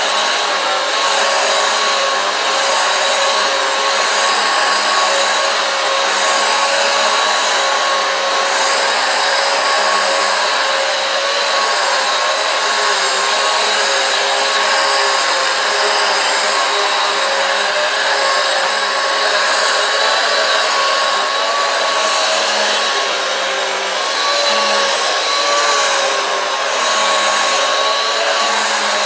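Eureka AirSpeed One upright vacuum cleaner running steadily on a rug, a loud motor whine with a slight waver in pitch, its brush roll driven by a freshly replaced belt.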